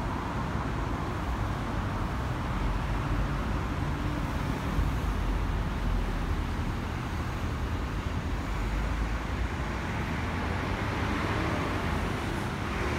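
Steady road traffic from cars and trucks on a busy road: a continuous, mostly low-pitched noise with no single vehicle standing out.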